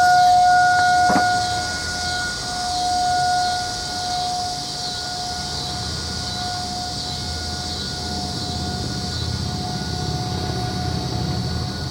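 Distant outdoor tornado warning siren sounding its monthly test. It holds one steady pitch, and its loudness swells and fades.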